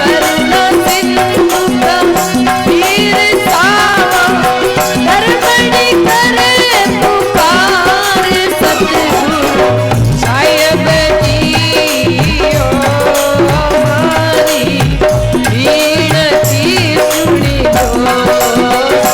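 Rajasthani folk bhajan music without words: a wavering melody over hand percussion, with low drum beats coming in about halfway through.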